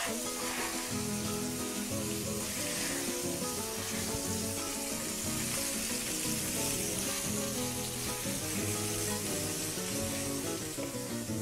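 Floured salt cod pieces frying in extra-virgin olive oil in a nonstick pan: a steady sizzle of the oil as they brown, alongside background music.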